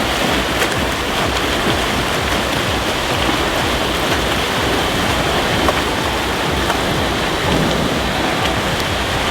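Swimmers churning the water of a pool: a dense, steady wash of splashing with scattered small splashes and drips through it.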